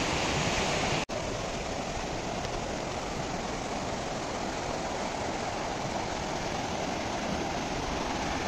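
Shallow Kaveri river rapids rushing over rocks: a steady, even rush of white water, broken by a momentary dropout about a second in.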